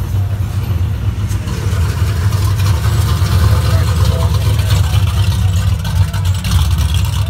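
A late-1960s Chevrolet Chevelle's engine rumbles at low speed as the car rolls slowly past, its low exhaust note swelling as it comes alongside about halfway through.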